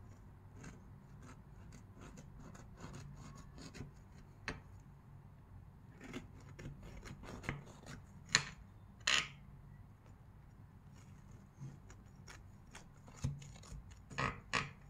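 Knife cutting through a baked fudge brownie in a glass baking dish: a run of short scraping and clicking strokes as the blade saws through the crust and touches the glass, loudest about eight to nine seconds in and again near the end.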